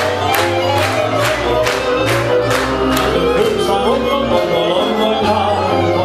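Gypsy band of violin and double bass playing Hungarian nóta accompaniment, with a steady beat of about two strokes a second. The beat thins out about halfway through as a man's singing voice comes in over the strings.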